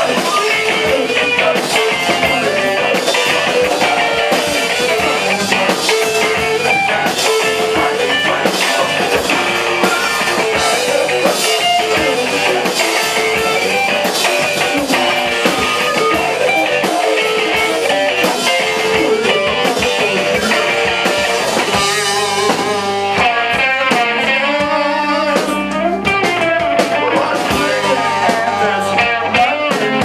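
Live rock band playing loudly: electric guitar over a drum kit, with a flute also playing. About two-thirds of the way in the drum hits drop out for a few seconds while held notes carry on, then the drums come back.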